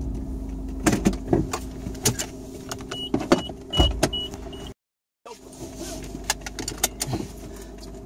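Car heard from inside the cabin while driving: a steady low rumble and hum with irregular knocks and rattles, which the driver puts down to a worn rear wheel bearing. About three seconds in comes a quick run of five short high beeps, and a little past halfway the sound drops out completely for half a second.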